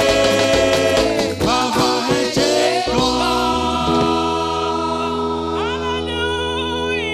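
Gospel praise band and singers performing an energetic Nigerian praise song; about three seconds in they settle onto a long held chord, the bass note steady underneath while a voice slides up into a sustained note.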